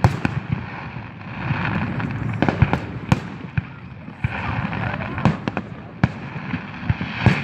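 Fireworks and firecrackers going off: a string of sharp bangs at irregular intervals, several close together, over a background of voices.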